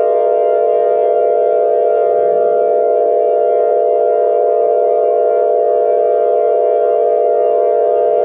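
Mock Emergency Alert System attention tone: a loud, steady electronic drone of several tones sounding together, held without any change in pitch.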